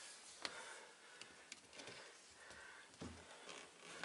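Near silence with a few faint clicks and light rustles of hands handling the rear window glass and its rubber weatherstrip.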